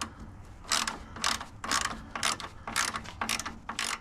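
Short rasping mechanical strokes in a steady run, about two a second.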